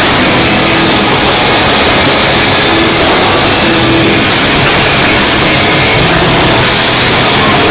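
Loud, overloaded wall of sound from a stadium fireworks show, the steady noise of the fireworks mixed with music over the stadium PA; no single bang stands out.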